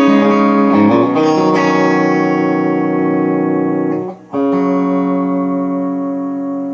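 Electric guitar played through an amplifier over a wireless guitar transmitter. A chord is struck about a second in and left to ring. The sound dips briefly near four seconds, then a second chord rings out.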